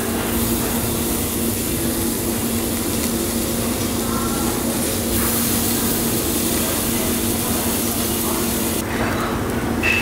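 Beef slices sizzling on a yakiniku grill over gas flames: a steady hiss with a low steady hum underneath. The hiss thins near the end.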